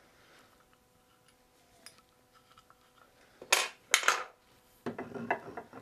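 Two sharp clacks about half a second apart, then a run of softer knocks and rattles: wooden pieces being handled and set against a jig on a table saw's metal top, with the saw not running.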